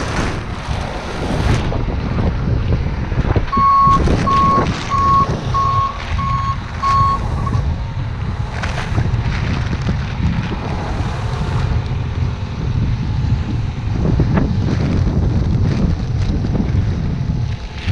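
Manitou 733-115 telehandler's reversing alarm beeping six times at one pitch, about a beep every two-thirds of a second, a few seconds in. Wind buffets the microphone throughout.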